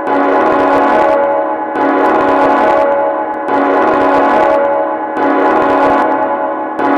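Horror sound effect of loud, bell-like metallic ringing: a dense, sustained chord restruck about every second and three quarters, each stroke starting with a bright hiss that fades while the tones ring on.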